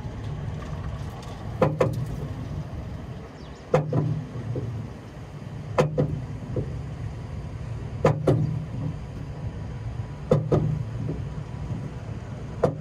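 Roller coaster train being hauled up a chain lift hill, heard from the front seat: a steady low rumble with a sharp clack about every two seconds.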